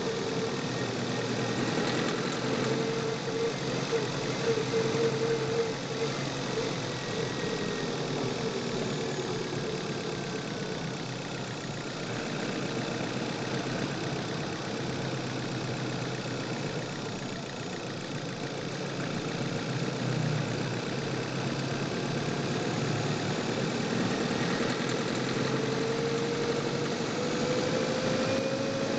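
Chevrolet car engine running, picked up by a microphone in the engine bay. The steady engine note eases after about six seconds and climbs in pitch near the end.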